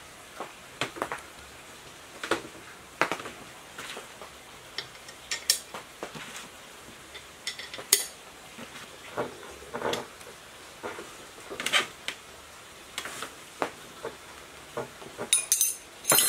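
Irregular light clicks and clinks as a water pump is reassembled by hand: the end cover is fitted over the shaft and bolts are set into its rim. There is a quick cluster of clinks near the end.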